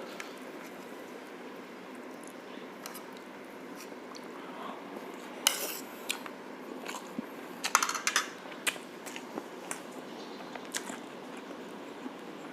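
A person eating braised pork shank: chewing, with scattered sharp clicks of utensils on a plate that bunch together about five to eight seconds in, over a steady background hiss.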